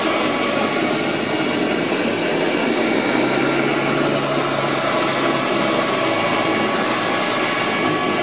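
Seaplane's turboprop engine running with its propeller turning as the plane moves on the water: a steady loud drone with a high turbine whine that rises a little in the middle and then sinks back.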